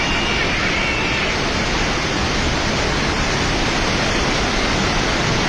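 Steady, loud rush of swollen floodwater, a continuous even roar with no breaks.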